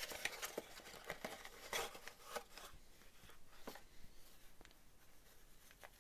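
Faint handling noise from unboxing: a cardboard box insert and a felt pouch being picked up and moved, giving scattered light clicks, taps and rustles.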